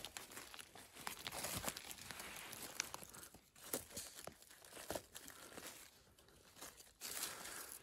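Dry forest litter rustling and crackling, with scattered sharp snaps of twigs and leaves.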